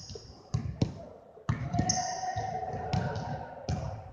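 Basketballs bouncing on a hardwood gym floor: a run of uneven thuds, echoing in the large hall.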